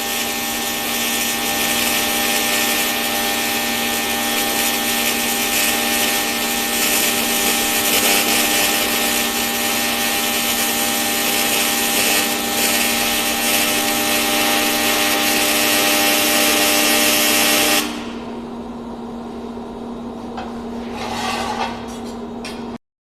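Welding arc on an aluminium chassis: a steady hiss with a buzzing hum, which cuts off sharply about 18 seconds in. A quieter hum carries on after, with one brief noise near the end.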